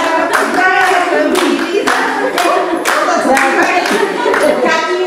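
A group of people clapping in a steady rhythm, about two claps a second, with voices over the clapping.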